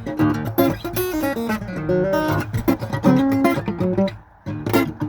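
Guitar being played solo, plucked notes and strummed chords, with a short drop in level about four seconds in.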